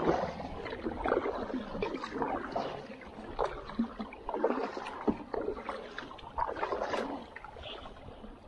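Kayak paddle strokes splashing and dripping in the water, with water lapping against the kayak's hull.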